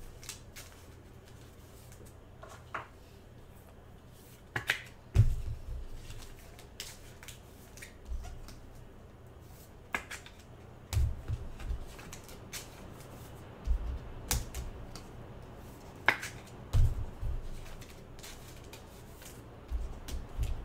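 Trading cards being handled and sorted by hand: scattered light clicks and snaps, with a dull thump every few seconds as cards are set down.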